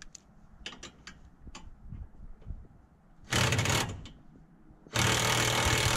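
A power wrench running in two bursts, a short one about three seconds in and a longer, steady one from about five seconds in, undoing the long rear strut bolt of a car's suspension. A few light tool clicks come before it.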